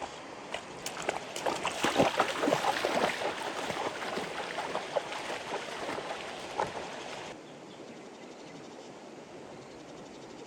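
Irregular splashing and sloshing of water, busiest a couple of seconds in, that stops abruptly about seven seconds in.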